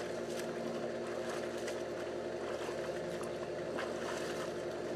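Pool water splashing as a boy sweeps his hands through the surface, throwing spray, over a steady low mechanical hum.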